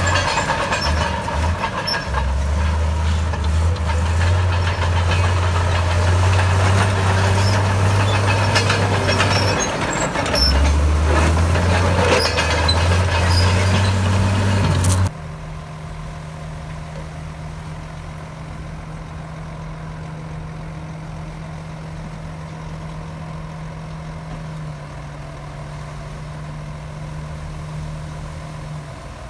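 Heavy diesel earthmoving machinery running, its low engine note shifting up and down. About halfway through, the sound cuts abruptly to a quieter, steady engine hum.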